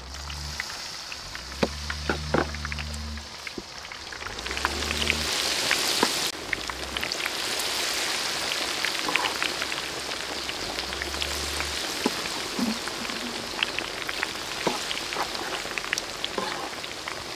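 Battered chicken wings deep-frying in a wok of hot oil: a steady sizzle full of crackling pops, which grows louder about five seconds in.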